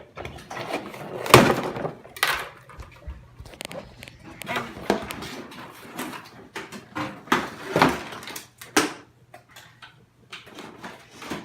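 Box and packaging of an RC truck being opened by hand: irregular knocks, clicks and scraping as parts are pulled free, the loudest knocks about a second and a half in and near eight seconds in.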